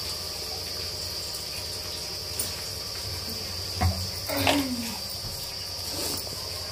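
A steady high-pitched drone, like a chorus of insects, runs on without a break. A few short, faint sounds, one of them a brief falling vocal sound, come just after the middle.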